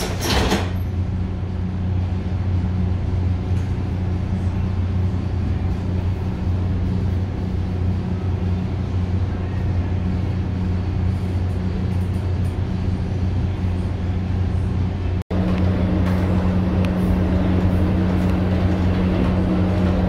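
Steady low hum inside a Metra commuter coach standing with its doors shut, with a brief noisy knock right at the start. It drops out for an instant about three-quarters of the way through and comes back with a stronger hum.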